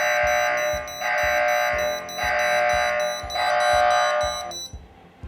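Dahua VTH indoor monitor sounding its intruder alarm, four long beeps of about a second each, then it stops near the end. The alarm is triggered by a door contact opening while the AirShield system is armed in home mode. Background music with a steady beat runs underneath.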